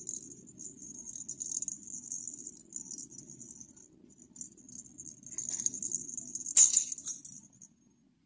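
Polyester ball fiberfill (cluster stuffing) rustling and crackling as fingers pack it into a crocheted amigurumi head, in uneven scratchy spells with one sharper, louder crackle about two-thirds of the way through.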